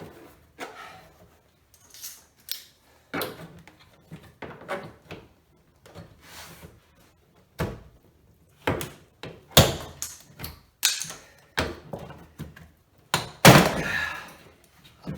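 Door trim panel of a 2014 Escalade being pried and pulled off, its retaining clips popping loose: an irregular run of sharp knocks and snaps, the loudest a couple of seconds before the end. The panel is a tight fit.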